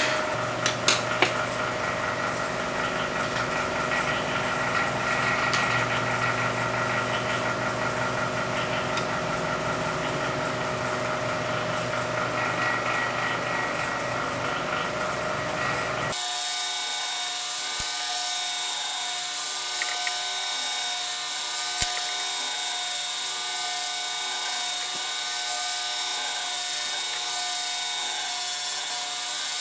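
Delta 3D printer's stepper motors running, a steady mechanical whine made of many held tones. About halfway through, the sound changes abruptly: the low hum drops away and it turns thinner and hissier.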